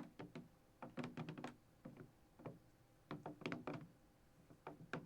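Foley footsteps: a pair of women's shoes clomped on a hard surface in quick, uneven clusters of knocks, a fumbly walk.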